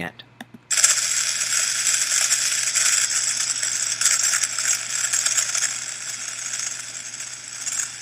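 Audified induction magnetometer data playing: the geomagnetic field record is sped up into hearing range and comes out as a high, scratchy crackling hiss. It starts about a second in and eases off slightly near the end. The scratchiness is the sound of strong resonance in the field, a sign of geomagnetic instability.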